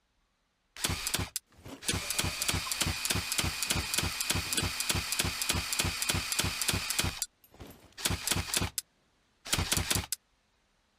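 Automatic crossbow sound effect: a rapid run of mechanical shots, about four a second for some five seconds over a steady high whine. Short separate bursts come before and after the run.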